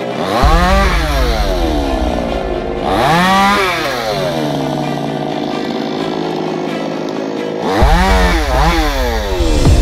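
Two-stroke chainsaw cutting tree branches, its engine revving up and dropping back: once about a second in, again near three seconds, and twice in quick succession near the end, running lower and steadier in between.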